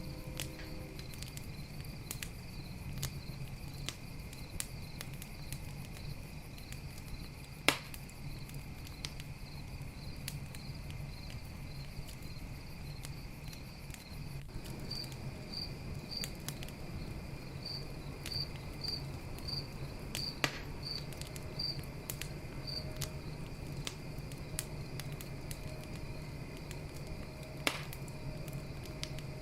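Campfire crackling with scattered small clicks and three loud pops, over a low steady rumble of the fire. Crickets chirp throughout: a steady high trill and a higher chirp that comes in regular pulses.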